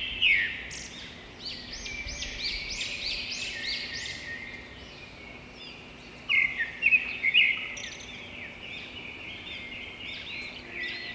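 Small birds chirping: many quick, overlapping chirps, with a louder flurry about six seconds in.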